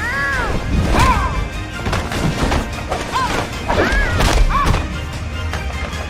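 Animated fight-scene soundtrack: music with hits, crashes and thuds, and several short pitched sounds that rise and fall.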